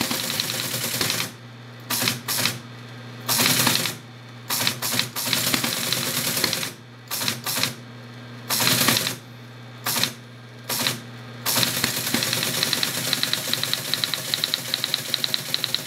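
ASR-33 Teletype printing: short bursts of typebox clatter with pauses between them, then from about two-thirds of the way in a continuous, rapid, even clatter of characters. The machine's steady hum runs underneath.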